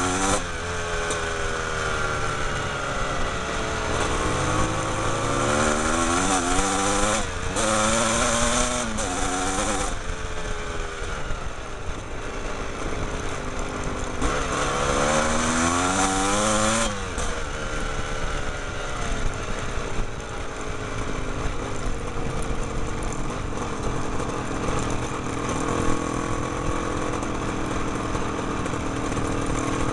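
Trail motorcycle engines running on a dirt lane, the revs climbing and dropping back several times through the first half, then holding more evenly.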